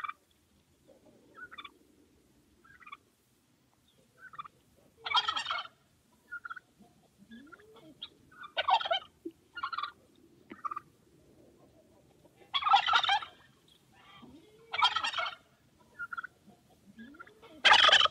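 Male turkey (tom) gobbling over and over while strutting in display, about five loud gobbles a few seconds apart, with short, fainter calls between them.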